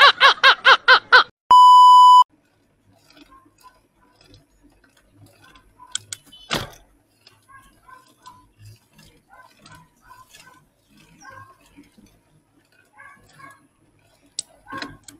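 Hearty, rhythmic belly laughter from a man in an inserted meme clip, cut off about a second in, followed by a short steady electronic beep. After that only faint scattered small sounds, with one sharp click about halfway through.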